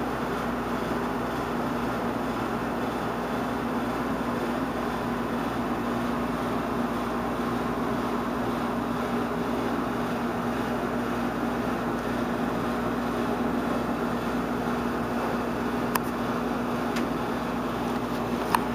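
Steady machine hum over an even hiss, with a couple of faint clicks near the end.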